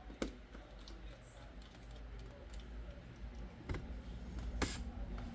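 A few scattered sharp clicks and taps from handling a laptop, the loudest about four and a half seconds in, over a low rumble.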